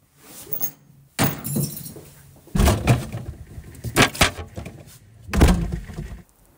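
Refrigerator being opened and rummaged: glass bottles and jars clink and rattle against the shelves as a bottle is lifted out. The noise comes in about five separate bursts, with heavier knocks about two and a half and five and a half seconds in.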